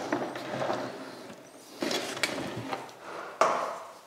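Handling knocks and clunks as a wet-dry vacuum cleaner and its hose are moved about on a scaffold platform, with rustling between them; the loudest knock comes about three and a half seconds in.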